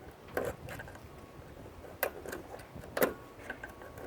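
Metal clinks and knocks from hand tools working a small electric motor apart. Three sharper knocks come about half a second, two seconds and three seconds in, with lighter clicks between.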